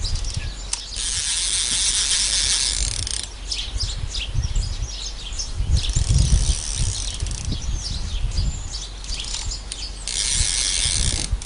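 Baitcasting reel's spool whirring in three spurts of a second or two each, as the reel is worked while its spool brake is being set. Birds chirp in the background.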